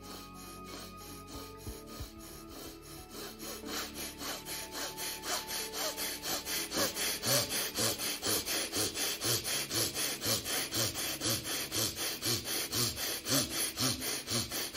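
Rapid, forceful breaths in and out through the left nostril, the right nostril held shut by the thumb: an even run of about three sharp breaths a second that grows louder and stronger from about three seconds in. Faint music underneath.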